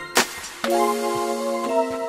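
Background music: a short hit near the start, then held chords that change once near the end.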